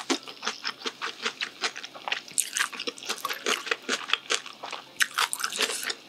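Close-miked chewing of a mouthful of spicy mixed cold noodles with young-radish kimchi: quick wet crunches and smacks, several a second.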